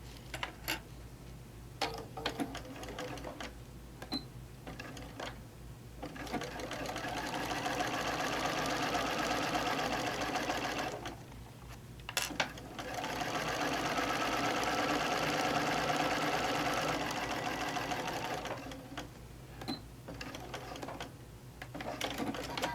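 Sewing machine stitching a seam through layers of fabric and foam. It runs in two spells of about five seconds each with a short stop between, and there are clicks and handling noise before and after.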